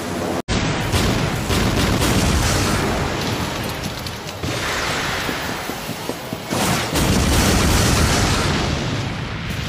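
Anime sound effect of a huge energy blast. The sound cuts out for a split second about half a second in, then comes back as a long, loud rumble that swells again several times.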